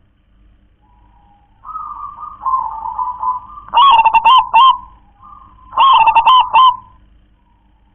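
Zebra dove (perkutut) cooing. Softer, drawn-out coos lead into two loud, quick-noted cooing phrases about two seconds apart.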